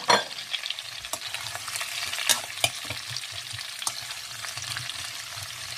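Vienna sausages, carrots and freshly added zucchini, bell pepper and onion sizzling in oil in a non-stick frying pan as they are stirred, a steady hiss broken by a few sharp clicks and knocks.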